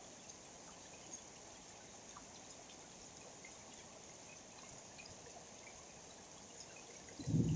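Steady rain falling, an even hiss with scattered drips. Near the end a much louder, low, steady-pitched hum starts.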